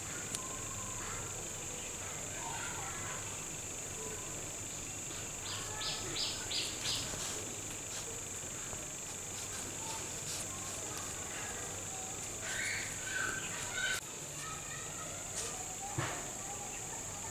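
Steady high-pitched insect drone with a short run of chirps midway, under faint handling sounds and a few light clicks.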